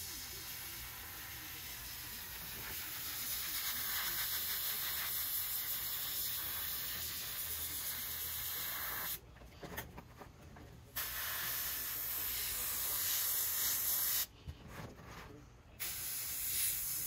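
Airbrush spraying paint: a steady hiss of air that cuts out twice for a second or two, once about nine seconds in and again near the end.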